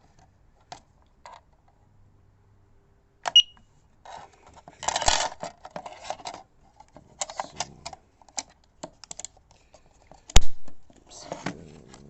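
Clicks and clatter of batteries being taken out of and handled around a plastic carbon monoxide alarm, with one short high beep about three seconds in and a single sharp loud click about ten seconds in.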